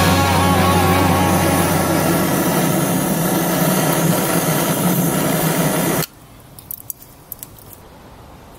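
Looftlighter electric charcoal lighter running, blowing hot air into lump charcoal as a steady hiss with a low hum. It cuts off suddenly about six seconds in, followed by a few faint clicks.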